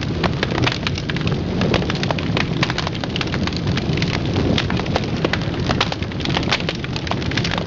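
Crackling fire sound effect: a dense, steady stream of sharp pops and crackles over a low rumble.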